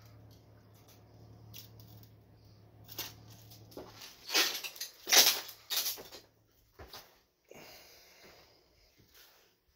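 A steady low hum, then loud rustling and knocking about four to six seconds in as a wooden door is passed up close, followed by a few scattered light knocks.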